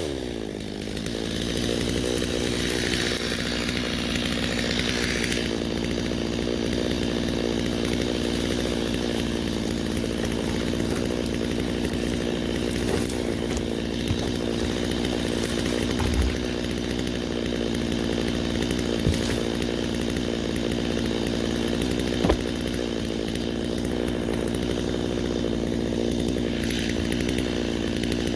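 Stihl MS 250 two-stroke chainsaw dropping off the throttle at the start, then idling steadily, with a few sharp knocks along the way.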